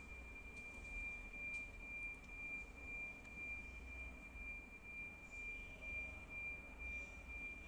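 A steady, high-pitched electronic tone, one pitch held without change, over a faint low rumble.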